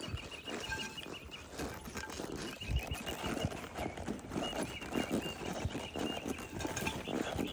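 A horse walking, its hooves clopping on the ground in an uneven run of thuds.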